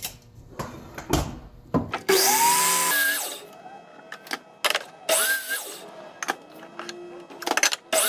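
Power saw cutting wood to length in short runs: the motor's whine rises as it spins up, under a loud cutting noise, about two seconds in and again about five seconds in. Sharp clicks and knocks of the boards being handled come in between.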